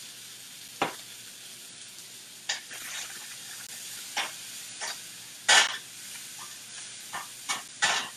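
Food sizzling steadily in a hot skillet while a utensil stirs it, with about eight sharp clacks of the utensil against the pan, the loudest about five and a half seconds in.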